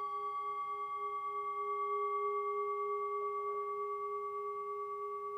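A hand-held metal singing bowl, resting on an open palm and struck once with a wooden striker just before, ringing on as a sustained chord of several clear tones. The ring pulses with a slow, regular waver and fades only slightly.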